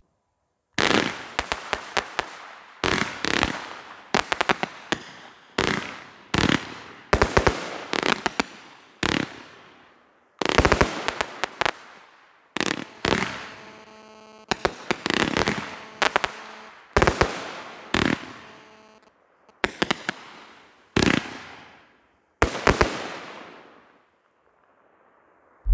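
Wolff Excentric (7202) category F2 firework battery firing shot after shot, about one every second or so. Each shot is a sharp bang that trails off, and some carry several quick cracks.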